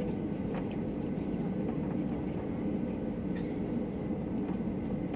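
Cabin noise of a Ryanair Boeing 737-800 taxiing: a steady rumble of the engines and rolling gear, with a few light knocks.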